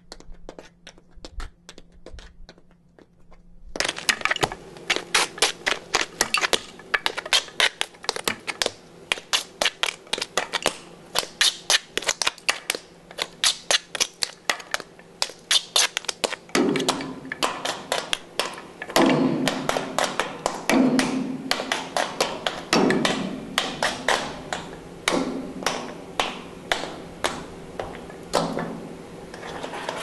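Tap shoes on stone blocks, a few faint taps at first. Then rapid tap dancing on steel bar grating: dense, sharp metal taps about five a second. In the later part some strikes make the grate ring with a lower plinking tone.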